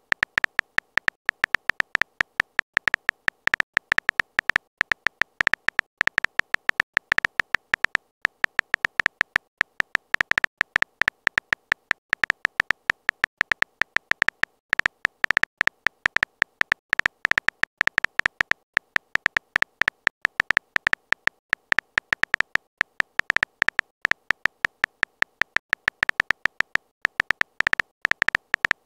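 Texting-app keyboard sound effect: a rapid, irregular stream of short, high clicks, one for each letter typed.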